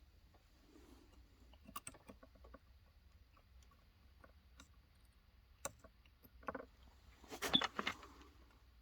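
Scattered small clicks and light metallic clatter from a soldering iron and small metal parts being handled during soldering on a battery pack, with a louder cluster of rattling clicks near the end.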